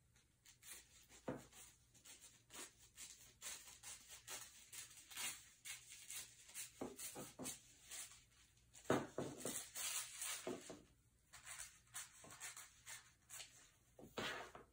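Scissors cutting through tissue paper: a faint, irregular run of crisp snips and paper crinkle, loudest about nine seconds in.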